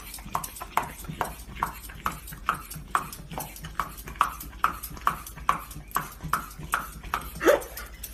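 Large black dog licking over and over with wet smacking laps, a steady rhythm of about two or three licks a second.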